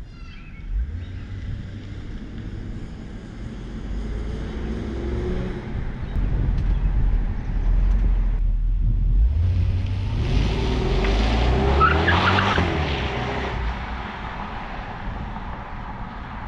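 2003 Jaguar XJR's supercharged V8 accelerating hard as the car drives away, its exhaust note climbing in pitch through the revs, loudest about twelve seconds in, then fading.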